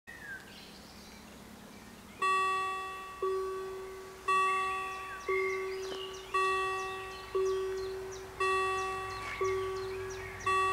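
Level crossing warning bell starting to ring about two seconds in: a clear struck ring about once a second, each stroke dying away before the next. It signals that a train is approaching and the crossing is closing.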